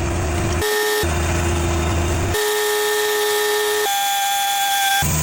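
Cooks AC36 bandsaw sawmill running: a steady mechanical whine with a low hum under it, jumping abruptly to a different pitch every second or so.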